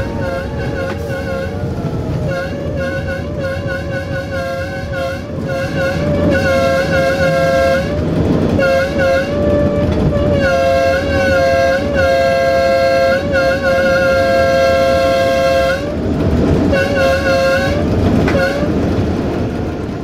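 LDH1250 diesel-hydraulic locomotive's horn sounding in long, wavering blasts over the engine and wheel noise, louder from about six seconds in, with short breaks about eight, ten and sixteen seconds in.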